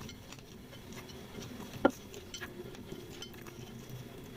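Fingers picking fried noodles out of a bowl: faint scattered ticks and clinks, with one sharp click about two seconds in.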